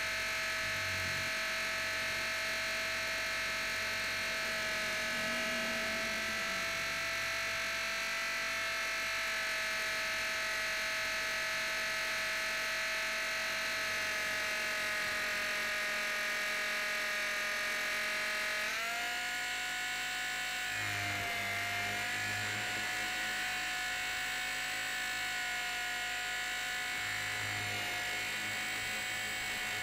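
Blade 450 X electric helicopter's brushless motor and drive gears whining steadily, picked up by a camera mounted on the helicopter itself. About two-thirds of the way through the whine steps up in pitch and holds there.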